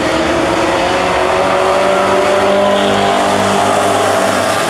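Street stock race cars running at speed around a dirt oval, a loud steady engine drone whose pitch drifts slowly as the pack circles.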